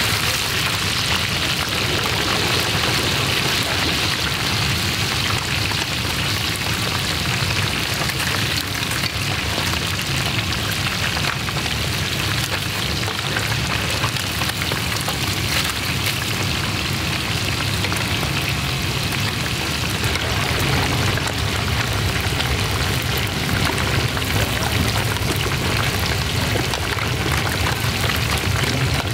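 Fish deep-frying in a large wok of hot oil: a steady, dense sizzle and crackle, with a low steady rumble underneath, as the pieces are turned with long metal skimmers.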